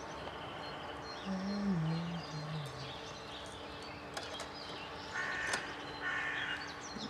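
Birds calling in the evening, with two harsh crow caws about five and six seconds in and faint chirps between. A low tone stepping down in pitch stands out between about one and three seconds in.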